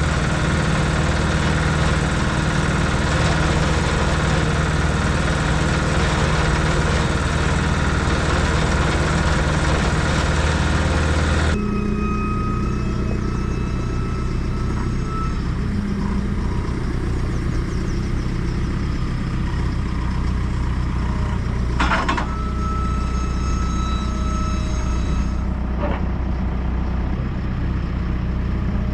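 A cement mixer's engine running steadily while mortar is mixed. About eleven seconds in the sound changes abruptly to a lower, quieter running note, and a sharp knock stands out a little past the middle.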